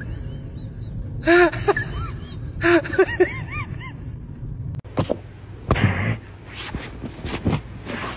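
A dog whining in short rising-and-falling cries, followed about five seconds in by a few sharp sniffs and snorts.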